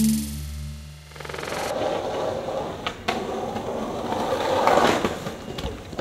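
Music fades out in the first second. Then skateboard wheels roll on asphalt, growing louder, with sharp board clacks about three seconds in and again near the end as the skater pops and lands a trick.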